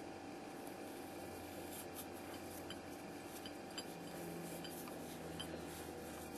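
Faint handling sounds of crocheted yarn being drawn through a cup cozy on a ceramic mug: soft rubbing with a few light ticks, over a steady low room hum.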